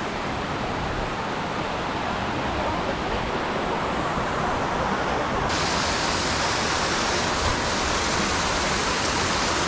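Steady rush of water falling and tumbling over rocks in a creek cascade, turning brighter and hissier about halfway through.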